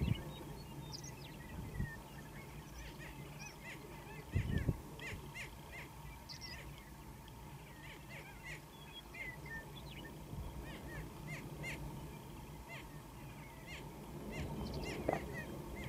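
Birds calling on open grassland: many short, quick chirping calls, scattered and overlapping all through. A brief low thump about four and a half seconds in.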